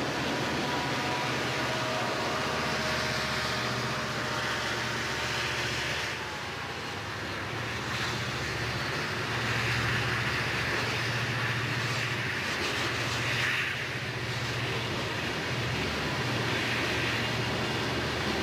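Southern Pacific freight train passing close by: the diesel locomotive engines rumble past first, then a string of tank cars rolls by with steady wheel-on-rail noise.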